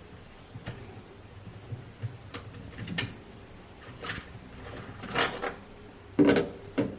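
Clicks, scrapes and metallic clinks of a tool working the transit bolts out of a Hisense washing machine, with a few louder knocks in the second half.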